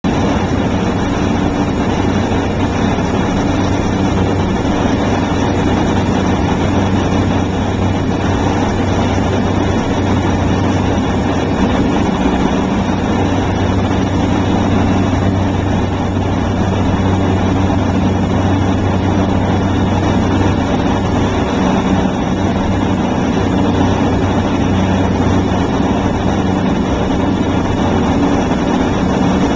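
Beechcraft King Air's twin turboprop engines and propellers running through final approach: a loud, even drone with a steady low hum.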